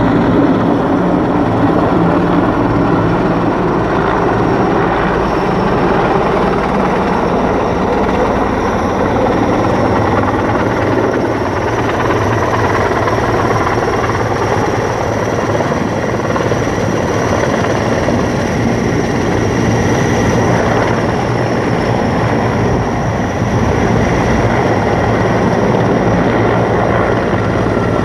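Sikorsky S-64 Skycrane heavy-lift helicopter hovering low, with steady rotor noise and a thin high turbine whine, while it takes on fire retardant through its snorkel hose.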